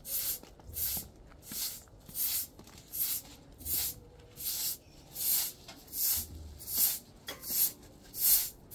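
Rhythmic scraping or rasping strokes, about one and a half a second, each a short hiss of friction.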